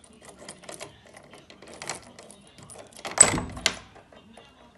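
Metallic clicking and rattling of a key and cylinder lock on a door, with two louder metallic clacks a moment apart about three seconds in.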